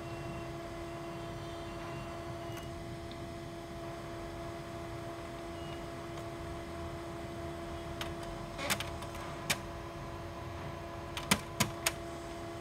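HP Color LaserJet M277n laser printer running its colour calibration cycle: a steady motor hum, with a cluster of sharp clicks from the mechanism a little past halfway and three more sharp clicks near the end.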